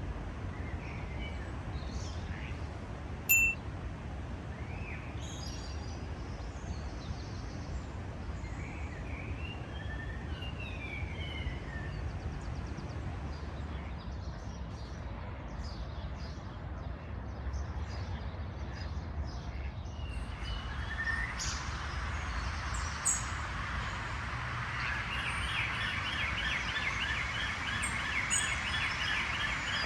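Bird song, which the recordist takes for, but is not sure is, a common blackbird: scattered chirps and short whistled phrases, then from about two-thirds of the way in a fast, steady run of repeated notes that sounds like an alarm going off. A low steady rumble runs underneath.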